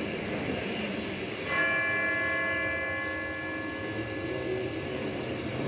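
A ringing chord of several tones that starts suddenly about one and a half seconds in and fades away over the next two seconds, over a steady rushing noise.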